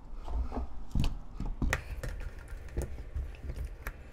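Raw potato slices being laid one by one into a nonstick pot: irregular light taps and clicks, two or three a second.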